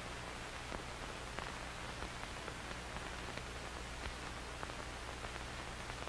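Steady hiss with faint, scattered crackles and a low hum underneath: the background noise of an old film soundtrack.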